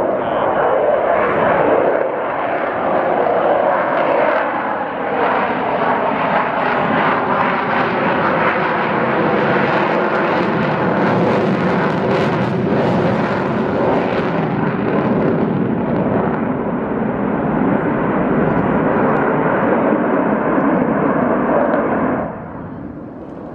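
Avro Vulcan XH558's four Rolls-Royce Olympus turbojets roaring in a display flypast, loud and steady, with whining tones that slide slowly in pitch through the roar. The sound falls away sharply near the end.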